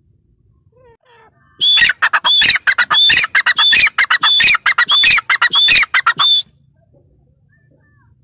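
Grey francolin calling: a rapid run of about eight repeated shrill phrases, each a high clear note dropping into lower notes, starting about a second and a half in and lasting about five seconds before stopping abruptly.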